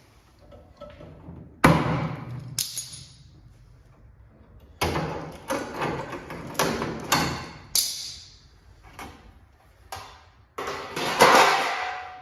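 Aerosol spray can of black paint spraying in a series of short hissing bursts, each starting sharply.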